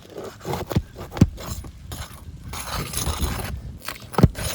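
Roofing work on asphalt shingles: scraping and clinking as shingles are pried loose, with two sharp knocks, one about a second in and a louder one near the end.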